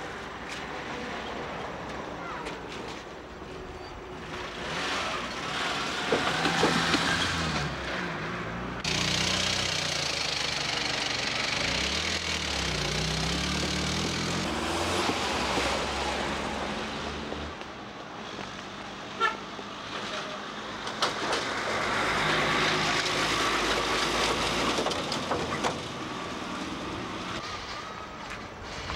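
Motor traffic crossing a railway level crossing: a truck's engine running as it drives over the tracks, with short vehicle horn toots.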